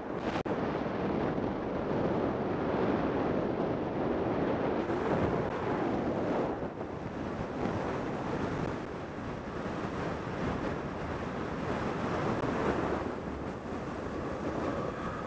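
Wind rushing over a camera microphone mounted on a moving velomobile, mixed with the rolling noise of its tyres on asphalt. It is a steady roar that swells and eases, with one brief click about half a second in.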